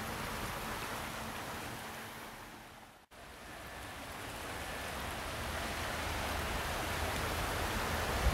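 Steady rushing of a swollen, muddy river running high after heavy rains. It fades out about three seconds in and comes back up.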